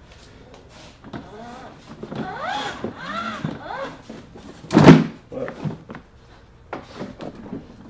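The plastic wheel of a ride-on toy being wedged under the toy's frame: a few squeaks of plastic and rubber rubbing together, then one loud thump a little before five seconds in as it drops into place, followed by a few light knocks.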